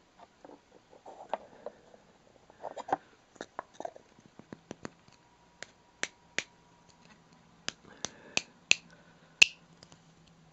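Two halves of a painted wooden Russian nesting doll twisted against each other to line up the painted figure: a run of sharp clicks and short squeaks of wood rubbing on wood, coming thicker and louder about halfway through.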